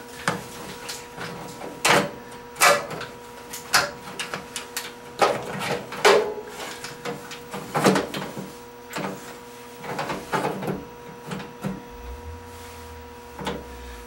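Irregular plastic clicks, knocks and rattles as a microwave's door-latch switch assembly is pushed into the metal frame until its catch snaps in place, and its wire connectors are handled.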